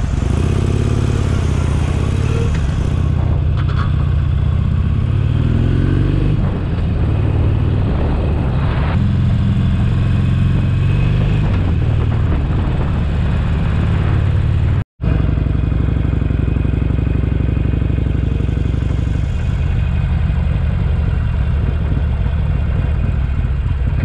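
Harley-Davidson Iron 883's air-cooled V-twin engine running under way, rising in pitch several times in the first six seconds as it accelerates through the gears. The sound cuts off sharply for an instant about fifteen seconds in.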